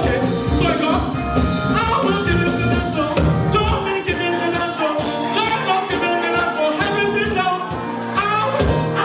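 Live gospel praise music: a group singing over a band with a steady beat and shaker-type percussion. It is picked up on a camera microphone, so it is a bit crackly. The low beat thins out about four seconds in and comes back near the end.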